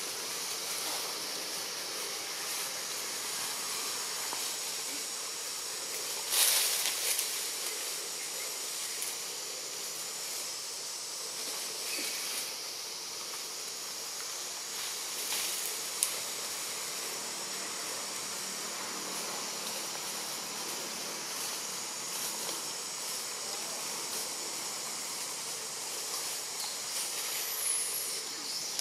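Steady high-pitched insect drone of a tropical forest, with a brief louder rustle about six seconds in and a single sharp click about midway.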